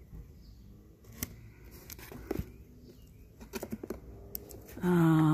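Light clicks and taps of a cardboard battery box being handled and turned over. Near the end, a man's loud, drawn-out hum, a wordless 'hmm' with a slightly falling pitch.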